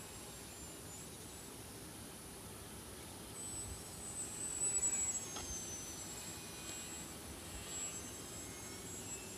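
Small electric RC airplane's motor and propeller, a thin high whine. It swells to its loudest about four to five seconds in, then falls in pitch.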